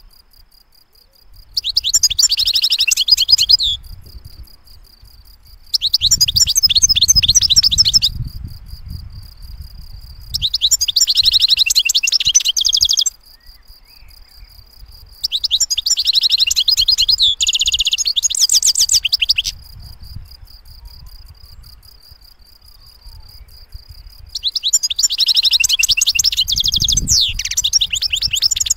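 European goldfinch singing: five phrases of rapid, high twittering song, each two to four seconds long, separated by pauses.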